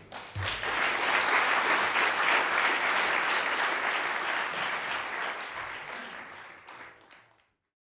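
Audience applauding, swelling within the first second, then slowly dying away before cutting off abruptly near the end.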